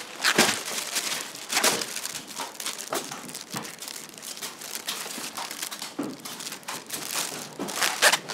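A thin clear plastic bag packed with trimmed young coconuts crinkles as it is handled, twisted shut at the top and lifted. The rustling is irregular and goes on throughout, with a few sharper crackles.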